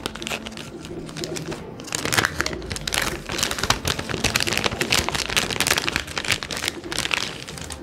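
Crinkling of a silver anti-static bag as a replacement battery is unwrapped and pulled out of it: an uneven run of crackles that goes on throughout.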